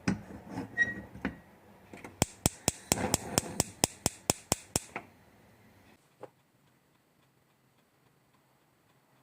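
A few light clinks and knocks, then a quick run of about a dozen sharp, evenly spaced clicks, roughly five a second, before the sound cuts to silence.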